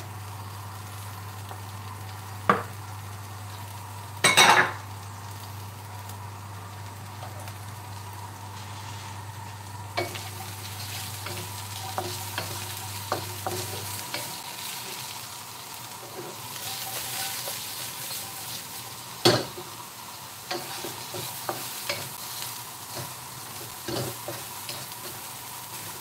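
Sliced red peppers and other vegetables sizzling in hot oil in a wok, stirred with a wooden spatula that scrapes and clicks against the pan, with a few loud knocks. The sizzle grows louder about ten seconds in.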